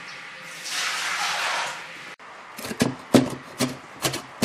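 A steady hiss during the first half, then, after a sudden break, a cleaver chopping scallions on a wooden cutting board: sharp knocks about two or three a second.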